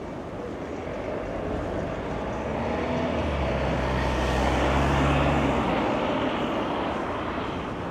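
Road traffic passing on a city street: a motor vehicle's engine hum and tyre noise swell to their loudest about five seconds in, then fade.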